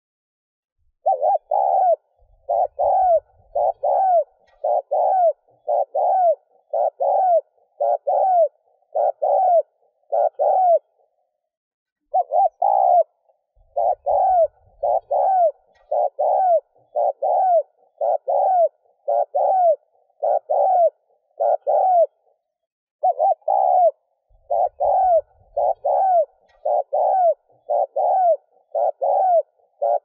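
Spotted dove cooing rapidly: the urgent 'thúc gù' coo used as a lure call to draw wild doves. Short coo notes repeat about three every two seconds in long runs, broken by a pause of about a second twice.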